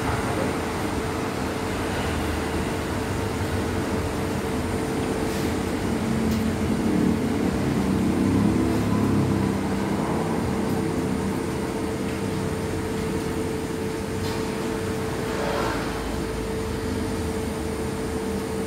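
Minipan 10 kg spiral mixer, a 2200-watt single-phase machine, running on its first speed with dough in the bowl: a steady motor hum with a constant mid-pitched whine over a low rumble, swelling slightly about eight seconds in.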